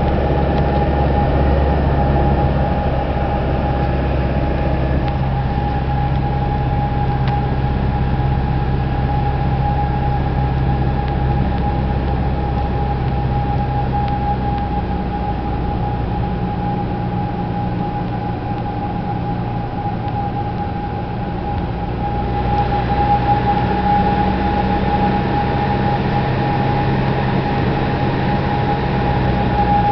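Cessna 172F floatplane's 180 hp engine and propeller running steadily, heard inside the cabin, with a steady high whine over the low drone. The engine note eases slightly partway through and gets louder again about two-thirds of the way in, as power is adjusted on the descent to a water landing.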